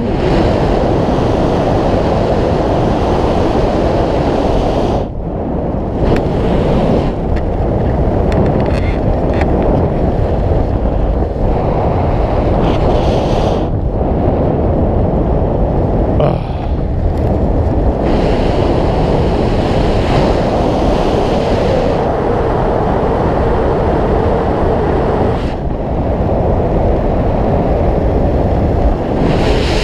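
Wind rushing over the camera's microphone during descent under an open parachute canopy: a loud, steady buffeting rush that briefly drops away several times.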